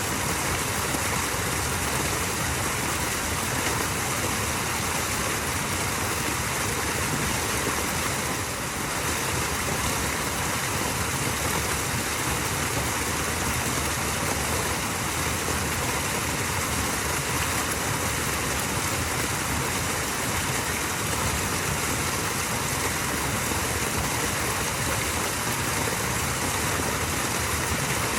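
Small waterfall: water running and splashing steadily.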